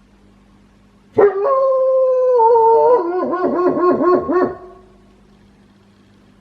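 A pet wolfdog howling once, in the odd-sounding, quirky howl it is known for. The call starts with a sudden rise to a held note, then breaks into a fast wavering, about four wobbles a second, before fading out near the end.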